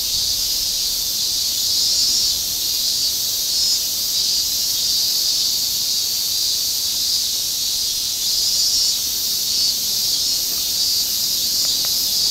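A loud, steady, high-pitched cicada chorus that swells and fades gently throughout. A couple of faint clicks come near the end.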